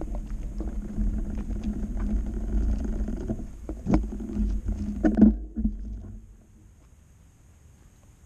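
Mountain bike rolling to a stop, with wind rumbling on the body-mounted camera's microphone and a few sharp knocks from the bike about four and five seconds in. The noise drops off about six seconds in, leaving a faint hiss.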